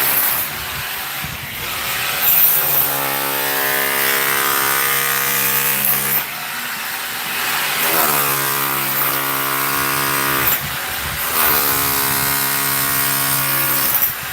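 An electric power tool's motor runs in three bursts of about three seconds each, holding a steady pitch within each run after a brief bend as it starts.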